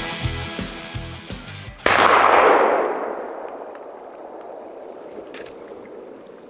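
Rock music with electric guitar, cut off about two seconds in by a single loud shotgun blast that echoes and fades over the next few seconds.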